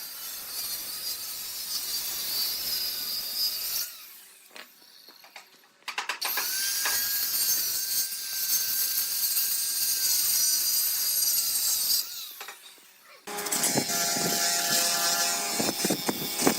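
Woodworking power tools running in three separate stretches, with short quiet gaps between them. The first two carry a steady high whine. The last is louder at lower pitch, with a stronger motor hum.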